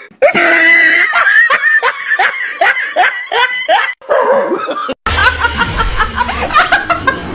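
People laughing hard in quick repeated bursts. About five seconds in, the sound cuts to a different run of high-pitched laughter from a young woman.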